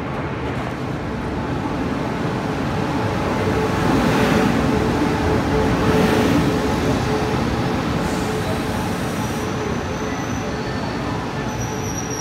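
E1000-class push-pull Tze-Chiang Express train running through the platform: a dense rumble that swells to its loudest about four to six seconds in and then eases off, with a steady hum underneath. Thin high squeals come in near the end.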